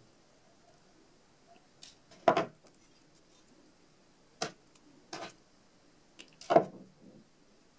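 Thin wire ends in a beaded flower's stem being snipped off with a cutting tool, trimming the stem thinner: about five sharp snips a second or so apart, two of them much louder.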